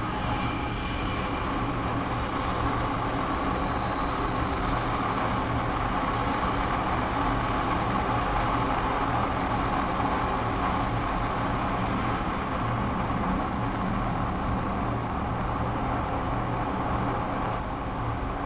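Subway train running through the station: a steady rumble with faint high wheel squeals now and then.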